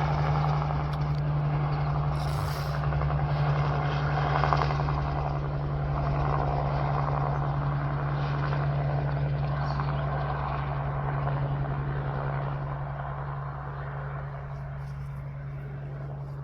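Crop-dusting helicopter running with a steady low drone, fading gradually over the last few seconds.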